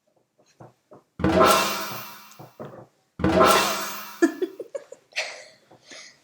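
Intro music: two loud drum hits with a cymbal crash, about two seconds apart, each ringing out before it fades, followed by lighter scattered sounds.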